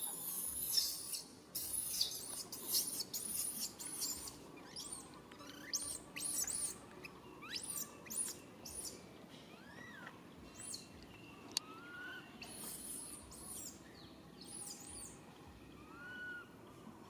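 A baby monkey calling out in distress: a busy run of short, very high-pitched squeaks and chirps, then from about halfway on several separate short calls that rise and fall in pitch.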